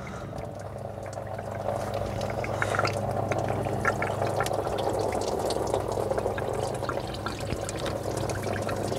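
Engine coolant pouring steadily out of the thermostat housing of a Jeep 4.0L straight-six as the radiator hose is worked off. It gets louder over the first couple of seconds, then runs on evenly, with a few faint clicks of handling.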